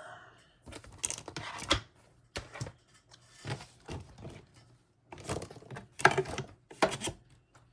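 Paper and cash-stuffing supplies being handled and shuffled: irregular rustling and crinkling with a few sharp taps, in bursts around the first two seconds and again near the end.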